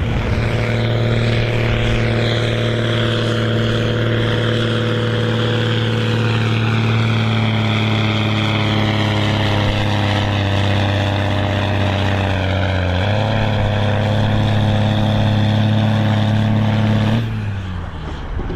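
Case IH Magnum tractor's six-cylinder turbo-diesel running hard under full load while it pulls a weight sled in a tractor pull. The steady engine note shifts slightly about 13 seconds in, and the sound cuts off suddenly near the end.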